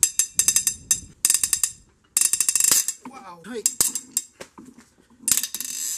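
Ratchet wrench with a triple square socket clicking in several quick runs of rapid metallic clicks as the cylinder head bolts of a Hyundai Theta II 2.4L engine are turned loose.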